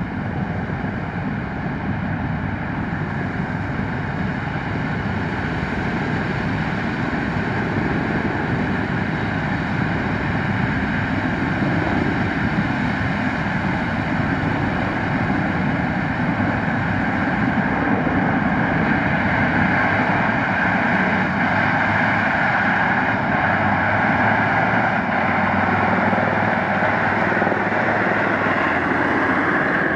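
John Deere S690 combine harvesting and unloading corn while the John Deere 9410R tractor runs alongside with the grain cart: a steady diesel machinery drone that grows louder in the second half as the tractor draws near.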